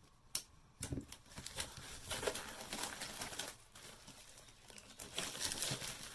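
Clear plastic shrink wrap being cut and peeled off a cardboard box and crumpled in the hands, with a dense crinkling and crackling. A sharp click comes about half a second in, and there is a short lull in the crinkling just after the middle.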